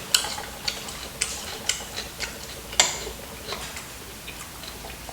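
Close-up eating noises: a string of sharp, irregular clicks and crunches, a few a second, loudest just under three seconds in and thinning out toward the end.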